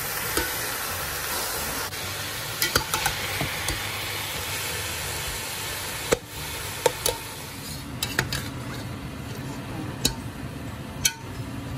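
Minced beef with onions frying in a stainless steel pot with a steady sizzle, stirred with a metal spatula that scrapes and clacks against the pot now and then.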